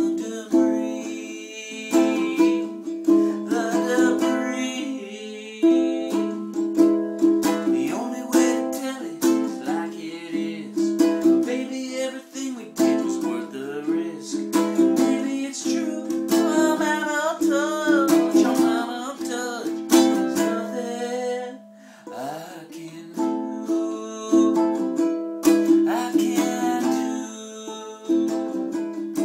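Lanikai tenor ukulele strummed in chords, an instrumental break between sung verses.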